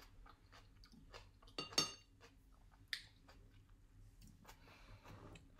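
Close-up chewing of a triangle kimbap (seaweed-wrapped rice with tuna mayo): soft wet mouth clicks, with a louder crunch a little under two seconds in and a smaller one near three seconds.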